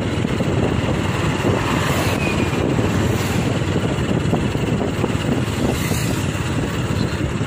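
Steady running noise of a moving road vehicle, with wind buffeting the microphone.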